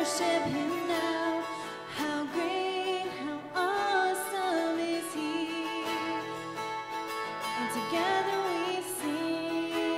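A woman sings a slow worship song while playing an acoustic guitar.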